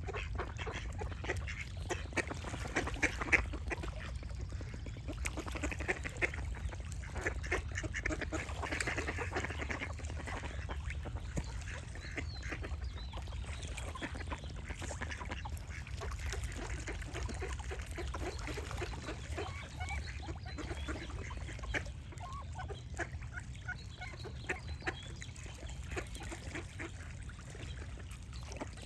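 Ducks quacking in many short, irregular calls, with birds singing in the background and a steady low rumble underneath.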